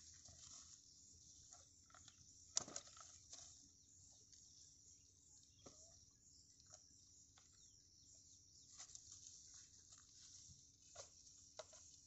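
Faint, steady chirring of insects in the grass, with scattered light clicks and scuffs and one sharp knock about two and a half seconds in.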